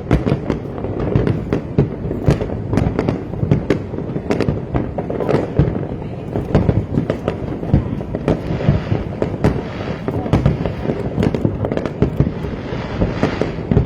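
Fireworks display: a continuous barrage of bangs and sharp crackling cracks, several a second, over a dense low rumble.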